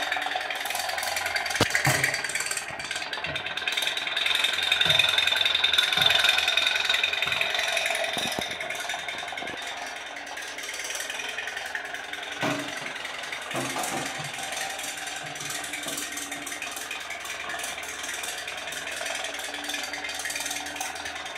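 Toy pop pop boat running: its candle-heated steam boiler putt-putts in a fast, even rattle as it pushes the boat along. A few louder knocks come through, at about two seconds and again after twelve seconds.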